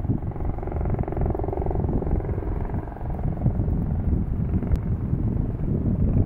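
Helicopter flying, its fast rotor pulse and steady engine tone fading about halfway through. Gusty wind buffets the microphone throughout.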